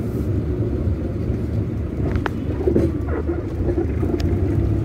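Steady low rumble of a car's engine and tyres while driving, heard from inside the cabin, with a few faint short tones around the middle.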